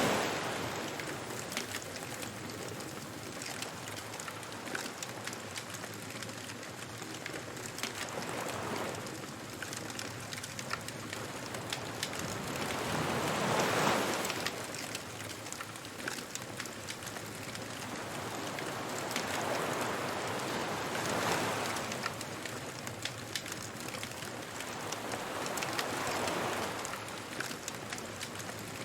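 Beach bonfire ambience: waves washing in, a swell every six seconds or so, over the steady crackle of a fire.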